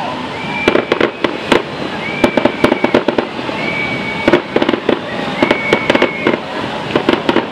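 Firecrackers going off in rapid crackling clusters, loud and sharp, with a high steady whistling tone about a second long sounding four times between them.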